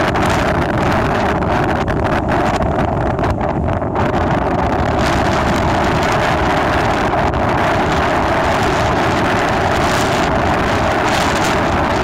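Wind blowing across the microphone: a loud, steady rush of noise.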